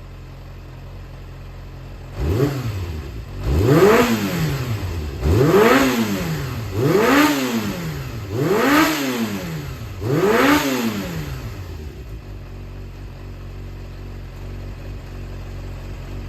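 Yamaha XJR400 inline-four engine idling, then blipped up and back down six times in quick succession before settling back to idle. It revs out and returns cleanly, an engine the seller describes as free of abnormal noise.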